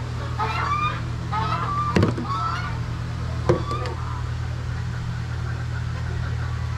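Poultry calling several times over steady wind rumble on the microphone. Two sharp knocks come about two seconds in and again about three and a half seconds in.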